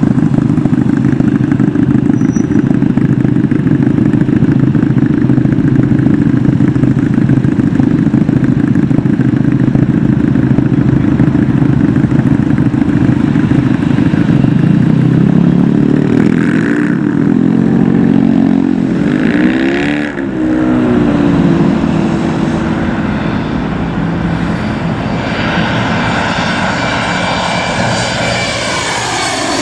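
Jet airliner noise at close range: a steady, loud low roar that takes on a sweeping, phasing quality as the aircraft moves past, with a higher engine whine coming up toward the end.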